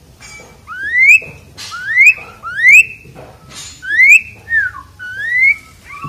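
Asian pied starling (jalak suren) singing loud whistles: about five rising notes, with one falling note between the last two.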